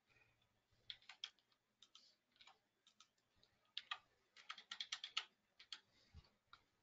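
Faint typing on a computer keyboard: scattered single keystrokes, then a quick run of about six near the middle as a number is keyed in, and a low thump near the end.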